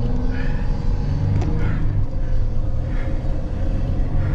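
Mercedes-Benz Sprinter 6x6 van's engine and drivetrain running with a steady low rumble, heard from inside the cab while it drives over a snow-covered track.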